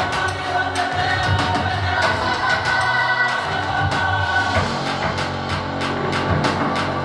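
Pop music with choir-like singing over a steady beat, played through a Sony HT-S400 soundbar; a heavier bass line comes in about halfway through.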